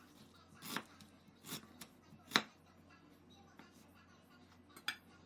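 A knife chopping through ginger root onto a cutting board: three sharp chops a little under a second apart, the third the loudest, then a lighter click near the end.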